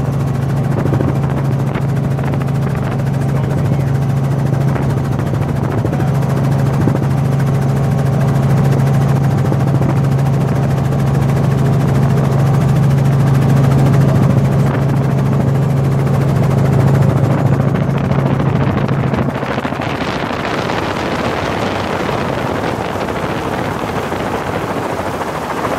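Helicopter in flight heard from inside the cabin: a loud, steady engine-and-rotor drone with a strong low hum. About three-quarters of the way through, the hum drops away and a broader rushing noise takes over.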